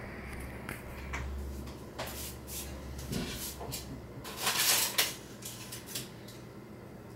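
Kitchen handling noises: scattered clicks and knocks of things being picked up and set down on a counter, with a louder rustle lasting about half a second near the middle.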